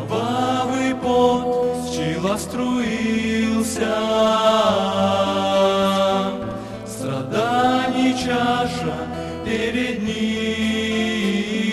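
Male vocal quartet singing a slow hymn in long held notes, with acoustic guitar accompaniment.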